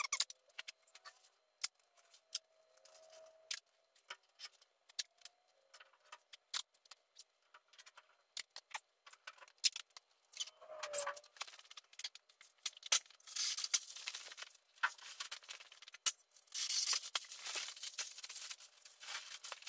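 Gray scuff pad rubbed by hand over a painted truck panel. Scattered light clicks and taps come first, then stretches of scrubbing in the second half, scuffing the paint dull so the clear coat will stick.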